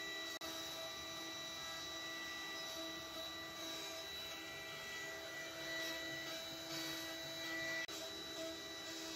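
Two-spindle CNC wood router carving a wooden board. The spindle motors give a steady high whine over the cutting noise, with two brief drop-outs.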